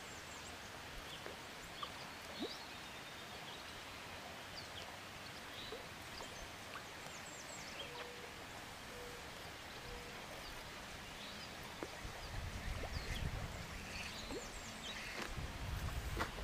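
Quiet pond-side ambience: scattered short bird chirps and calls over a steady hiss, with a low rumble coming in over the last few seconds.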